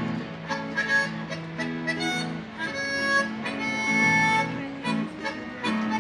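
Busker playing a tune on harmonica over a strummed acoustic guitar, with several long held harmonica notes.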